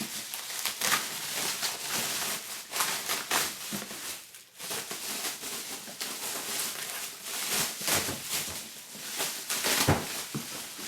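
Cardboard and plastic packaging being handled and pulled apart: irregular rustling, crinkling and scraping with short knocks, pausing briefly partway through.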